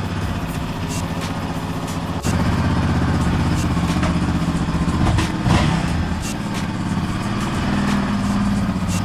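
Yamaha Raptor 700 ATV's single-cylinder engine running, stepping up suddenly in loudness about two seconds in, with its pitch dropping and climbing again around the middle.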